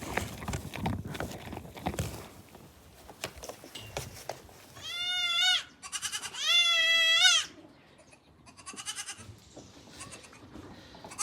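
Young goat bleating: a short high-pitched bleat about five seconds in, then a longer, louder one, followed by fainter calls. Scattered clattering knocks come first.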